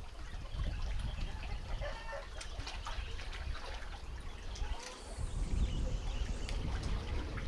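Wind buffeting the microphone as lake waves wash against the shore, with a few faint chicken clucks about two seconds in.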